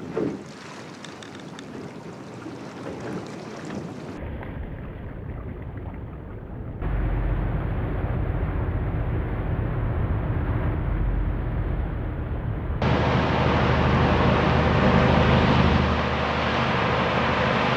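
Aluminium fishing boat running at speed under outboard power: a steady engine drone under rushing water and wind on the microphone. The sound jumps louder abruptly twice, about seven and thirteen seconds in.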